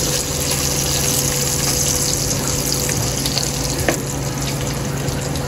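Sliced sausage sizzling in hot fat in a pot, a steady hiss, with a wooden spatula knocking against the pot once about four seconds in.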